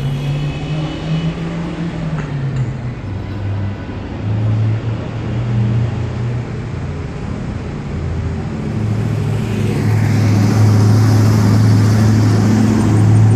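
Fire truck engine running nearby, its low drone growing louder about two-thirds in as the truck pulls up close, with a hiss rising over it in the last few seconds.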